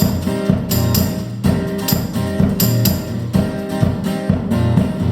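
Live band playing the instrumental opening of a song: strummed acoustic guitar over a steady percussive beat, with no singing yet.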